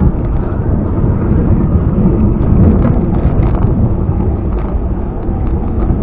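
Wind rumbling steadily on the microphone of a camera on a moving bicycle, a loud low buffeting.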